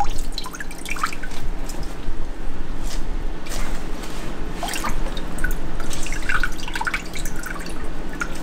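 Water dripping and splashing as a soaked waterproof glove is squeezed and moved in a bowl of water, with droplets plinking back into it in scattered bunches. A steady low hum runs underneath.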